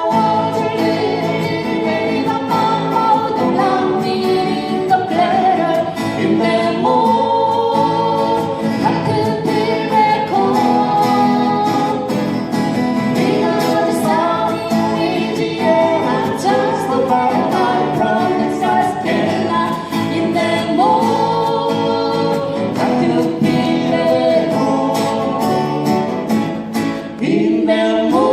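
Singing of a folk song with acoustic guitar accompaniment, continuous and steady.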